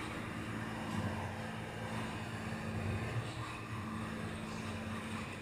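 Steady engine drone with a low hum, from the sound track of rescue footage played through room loudspeakers.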